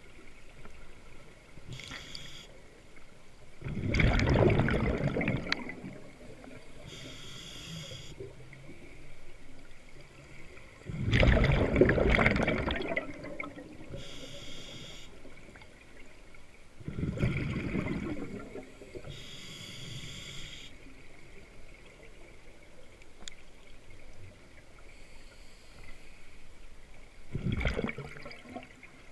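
Scuba diver breathing through a regulator underwater: a short hiss on each inhalation, then a loud gurgling rush of exhaled bubbles, about four breaths several seconds apart.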